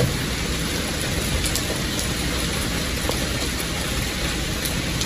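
Steady rain falling: an even hiss with a few faint ticks of drops.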